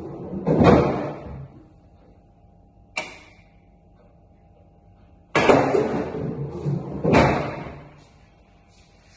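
Pool shot: a sharp click of cue and ball about three seconds in. Then two billiard balls drop into pockets one after the other, each setting off a loud rumble as it rolls through the table's ball-return channel.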